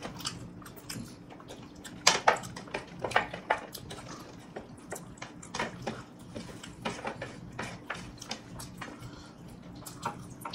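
Close-up eating sounds of people eating mutton biryani by hand: irregular wet chewing and lip smacks, with a few sharper smacks, over a faint steady hum.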